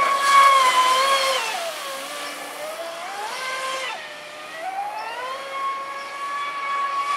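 Pro Boat Sonicwake RC speedboat's brushless electric motor whining at speed, its pitch following the throttle. It falls away about a second and a half in, climbs again, drops sharply about four seconds in, then rises and holds steady near the end.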